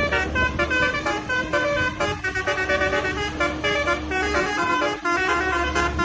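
Tour bus's Basuri telolet horns playing a fast melody of short toots that change pitch several times a second, over the steady low hum of the bus engine.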